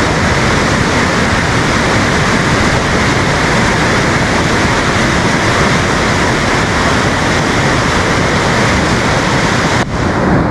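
A swollen, muddy river in flash flood (kepala air) rushing over boulders: loud, steady rushing of churning rapids, dipping briefly near the end.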